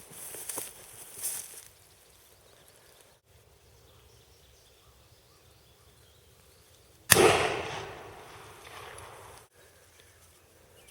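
A single shotgun shot at the bird, a sharp report about seven seconds in whose echo dies away over about two seconds, after faint rustling at the start and a quiet stretch.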